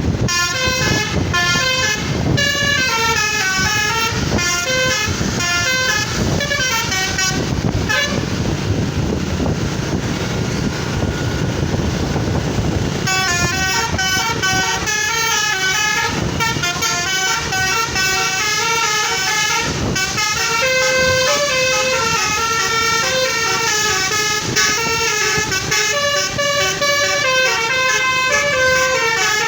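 Telolet musical horn on a truck or bus playing fast, multi-tone tunes of quickly stepping notes, over loud, steady background noise. The tune breaks off for a few seconds a little before the middle, then starts up again and plays on.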